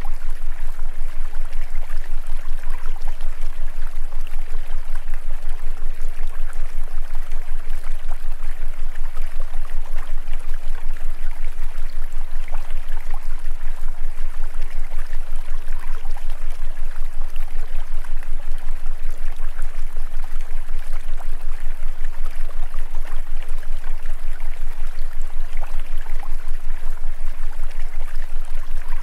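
Steady rush of running water like a stream, over a constant low hum, with the level pulsing rapidly and evenly.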